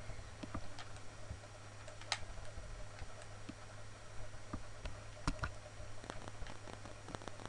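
Irregular clicks of a computer mouse, a few louder ones about two and five seconds in, over a steady low hum.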